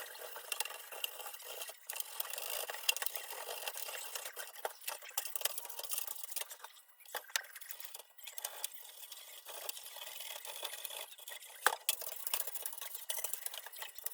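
Steel wool scrubbing chrome-plated sheet metal by hand: a steady scratchy rasping with small clicks and knocks, pausing briefly twice around the middle.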